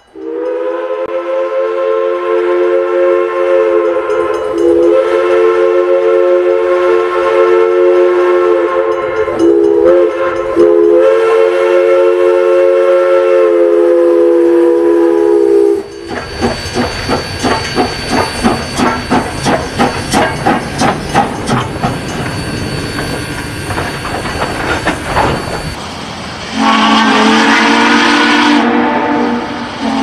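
Steam locomotive chime whistle, Canadian National 7470's, sounding one long multi-note blast with a couple of brief breaks for about sixteen seconds. It gives way to the locomotive's exhaust chuffing quickly and rhythmically as it pulls away. Near the end a second, lower-pitched steam chime whistle sounds.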